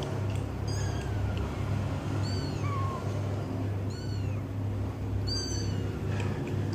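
Tiny kitten mewing in short, very high, thin cries, about four times, while being hand-fed milk by syringe, with a steady low hum underneath.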